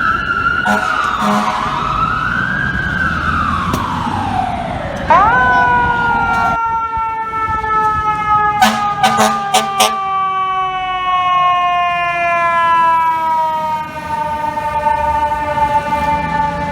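Fire truck sirens. A wailing siren sweeps down and up. About five seconds in, a second siren cuts in sharply and falls slowly and steadily in pitch. Several short horn blasts come just after a second in and again at about nine to ten seconds.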